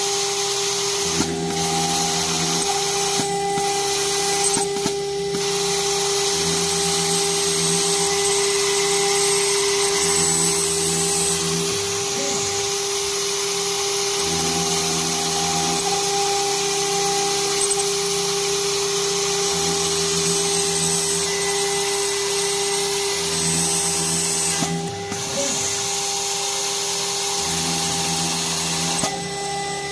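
Water-cooled CNC router spindle running at a steady high-pitched whine while its bit cuts aluminium, with a hiss of cutting over it. Underneath, a low hum changes pitch every second or two as the machine's axes move.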